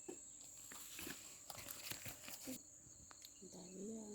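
Faint rustling and crackling for the first two and a half seconds over a steady high insect drone, like crickets; near the end a short, wavering hum.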